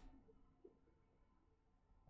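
Near silence: quiet room tone, with one faint brief tick about half a second in.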